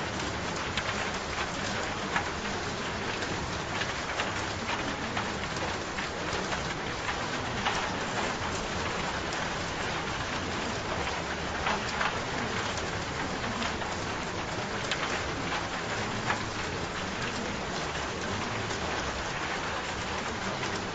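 Steady rain falling, an even hiss dotted with many small, separate drop ticks.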